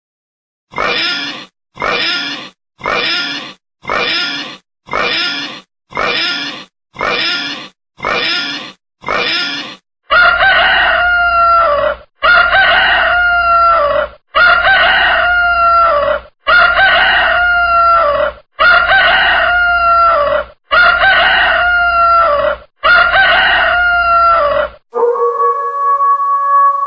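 A pig's short grunting oink, the same call repeated nine times about once a second. Then a rooster crowing seven times, each crow about two seconds long and falling in pitch at the end. Near the end a wolf begins a long howl.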